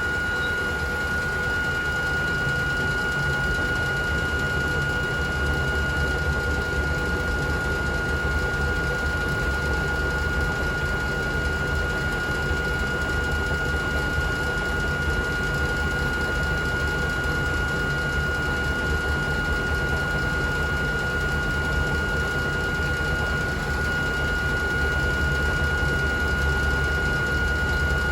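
Auxiliary machinery of an old Hakone Tozan Railway Moha 1/Moha 2 electric railcar running steadily: a constant high whine over a low hum and rumble, the rumble swelling in longer stretches.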